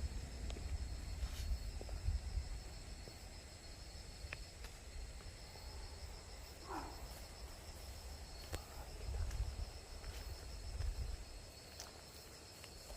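Night insects, crickets or similar, trilling steadily in high, pulsing tones over a low rumble, with a short sliding sound about seven seconds in.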